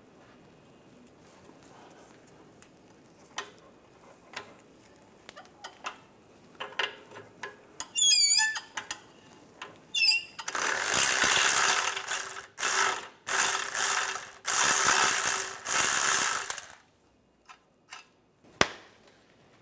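Ratchet work on the rusted 15 mm exhaust flange nuts. First come scattered clicks and a few short squeaks of metal on metal. Then, about ten seconds in, a cordless ratchet runs in four bursts over some six seconds.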